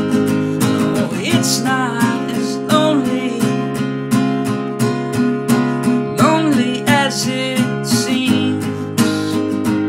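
Instrumental passage of an acoustic-guitar song: acoustic guitar strummed in a steady rhythm, with a higher melody line sliding between notes over it twice.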